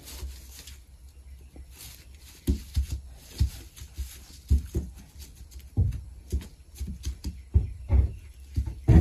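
Newborn goat kid and adult goat stepping about in straw bedding: irregular soft thumps of hooves with rustling straw, starting about two and a half seconds in.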